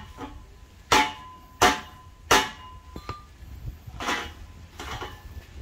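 Hammer blows on metal well-pipe fittings, each ringing briefly. Three sharp strikes come about two-thirds of a second apart, then two softer ones near the end.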